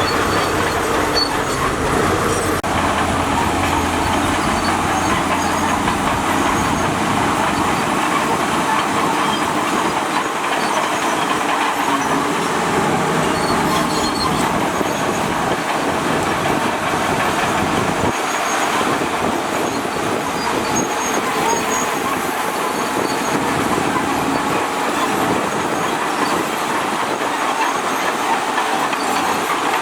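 Crawler bulldozer working: diesel engine running under load with its steel tracks clanking and squealing.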